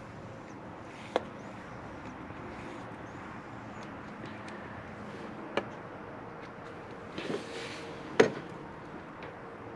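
Small air pump running steadily as it pushes cigar smoke into a car's intake to find vacuum leaks. Three sharp clicks come over it, the loudest about eight seconds in.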